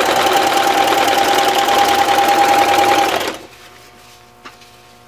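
Singer electric sewing machine with a walking foot running steadily at speed, zigzag-stitching fold-over elastic onto a fabric edge, with a steady motor whine over the rapid stitch rhythm. It stops about three seconds in, followed by a few faint clicks of fabric being handled.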